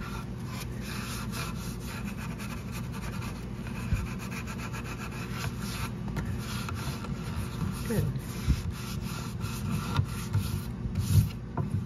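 A hand rubbing finish into the grain of a turned wooden chair leg, with a steady scratchy rubbing and a few light knocks against the wood.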